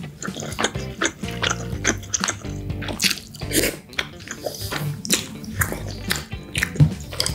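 Close-miked chewing of spaghetti in tomato sauce: wet smacking and clicking mouth sounds, with a louder wet rush about three and a half seconds in.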